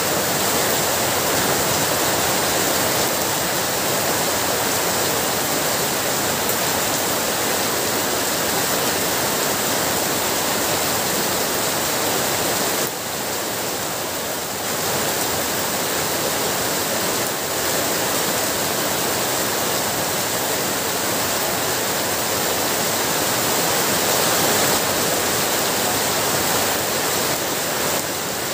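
Heavy rain falling steadily, a dense even hiss that eases slightly for a second or two about halfway through.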